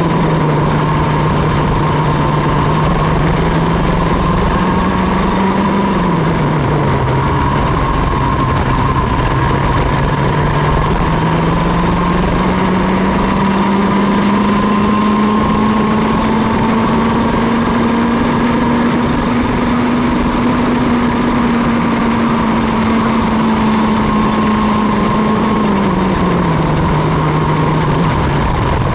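A Mini ROK racing kart's 60 cc two-stroke engine heard onboard at race speed. Its note drops about six seconds in, climbs slowly back up through a long stretch, and drops again near the end as the kart lifts for corners.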